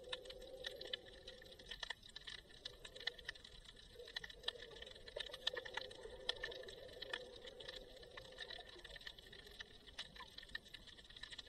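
Underwater ambience: a dense, irregular crackle of tiny clicks over a faint, wavering low hum.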